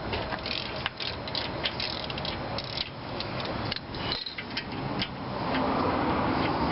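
Hand socket ratchet clicking in irregular runs as the brake caliper bolts are turned loose, with a denser, louder stretch near the end.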